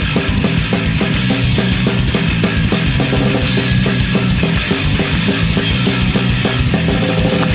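Live punk rock band playing an instrumental passage: a fast, steady drum-kit beat with cymbals over sustained bass and guitar chords, with no vocals.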